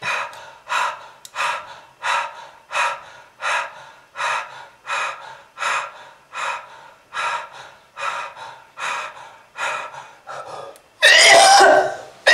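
A person gasping in short, strained breaths in a steady rhythm, about three every two seconds, then about eleven seconds in breaking into a much louder, rough hacking cough with throat clearing.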